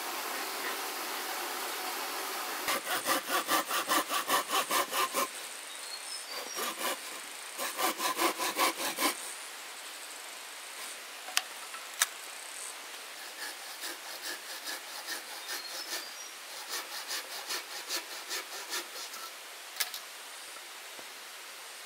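Hand saw cutting through wood in fast back-and-forth strokes, about four a second. It comes in two hard runs, then a couple of sharp knocks, then lighter, softer strokes near the end.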